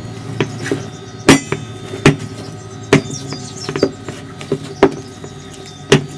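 Glass mixing bowl knocking on a stainless steel counter as dough is kneaded and pressed in it by hand: a string of sharp, irregular knocks.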